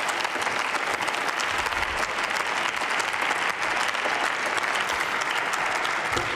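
Steady applause from many people clapping at once in a parliamentary chamber.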